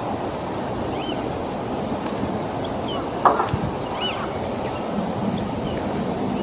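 Steady wind rumble on the microphone, with a few faint, short arched bird calls spread through it and a brief knock about three seconds in.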